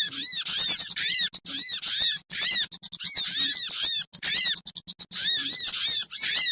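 Small songbirds calling in a bird-lure recording: a dense run of rapid high chirps over a repeated arched call note, about two a second. The calls are a mix meant to draw down wild jingjing batu, sogon and kemade birds.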